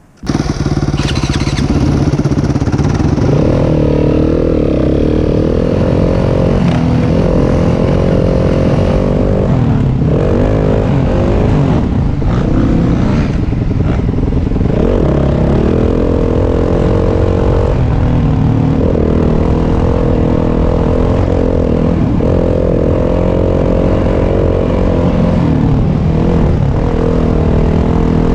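Yamaha WR250F's 250 cc four-stroke single-cylinder engine running as the dirt bike is ridden along a trail, its note rising and falling every second or two with the throttle and gear changes.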